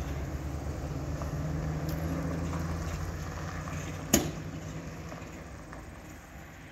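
Pickup truck towing a fifth-wheel camper pulling away, its engine running steadily and fading as it moves off. A single sharp knock about four seconds in.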